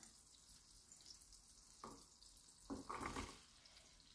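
Faint sizzle of melted butter in a frying pan, with a soft knock about two seconds in and a few louder scrapes around three seconds in as diced onion is pushed off a plate into the pan with a wooden spoon.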